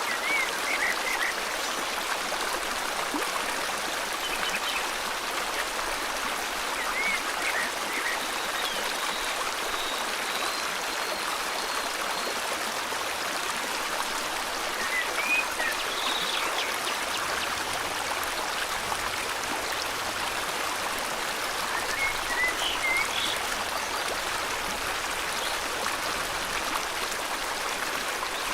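River water flowing steadily with an even rushing hiss, with short bird chirps heard now and then over it.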